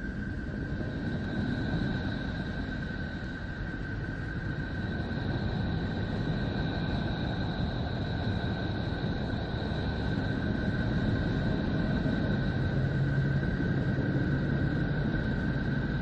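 The "sound of Neptune": spacecraft radio-emission data converted to audio. A steady low rush of noise with two thin, steady high tones above it, slowly growing louder.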